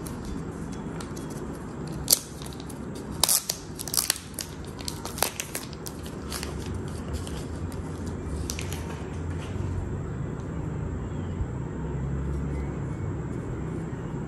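Packaging wrap crinkling and crackling as it is peeled off a small camera accessory, with sharp crackles and clicks bunched in the first half, the loudest about two seconds in. A steady low hum runs underneath.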